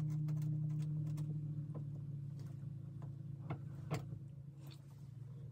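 Small clicks and taps of a narrow cut ceramic wall tile being pressed and nudged into place against the neighbouring tiles, with two sharper clicks about three and a half and four seconds in. A steady low hum runs underneath and slowly fades.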